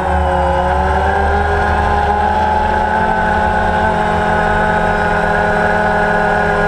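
Multirotor camera drone's motors and propellers humming steadily, the pitch shifting slightly as the rotor speeds change.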